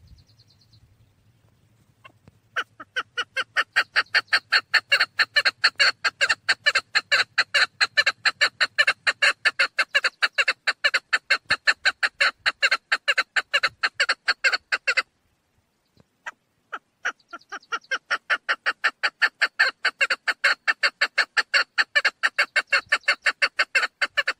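Female chukar partridge calling a fast, even series of short clucking notes, about four or five a second. The run starts about two seconds in, breaks off for a second or so past the middle, then resumes.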